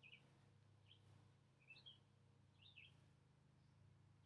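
Near silence with a few faint, short bird chirps, about one a second.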